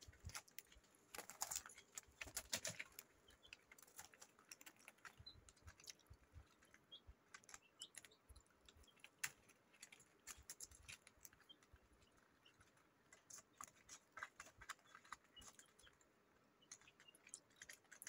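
Budgies pecking at chopped green leaves on newspaper: faint, irregular small clicks and crackles, in a few clusters.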